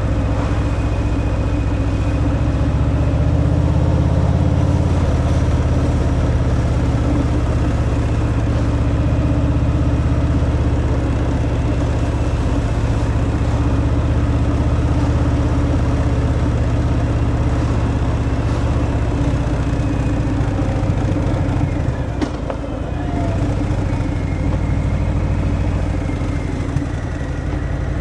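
Harley-Davidson Fat Boy's V-twin engine through its stock exhaust, running steadily while riding, with a brief drop in level about three quarters of the way through.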